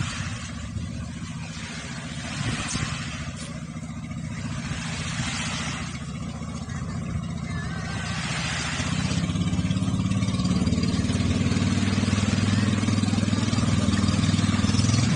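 Outrigger boat's engine running steadily as the boat comes in toward the beach, growing louder about nine seconds in. Small waves wash on the sand every few seconds.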